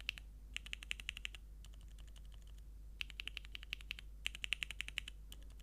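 Mechanical keyboard typed on in quick bursts of keystrokes with short pauses between them. The keys are Cherry MX Northern Light frankenswitches with MX2A Orange stems, lubed housings, 50g springs and films, on a carbon fiber plate with PBT keycaps.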